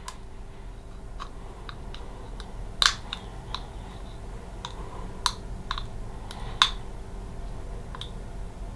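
A clear plastic aligner tray clicking and snapping as fingers press it onto the upper teeth: about a dozen small, irregular clicks, the sharpest about three seconds in and again past six seconds. It is a top tray that is not going fully into place.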